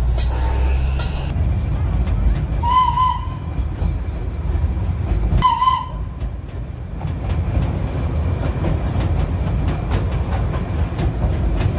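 Darjeeling Himalayan Railway steam toy train running, heard from inside a carriage as a steady low rumble and rattle. A hiss cuts off about a second in, and two short warbling whistles sound about three and five and a half seconds in.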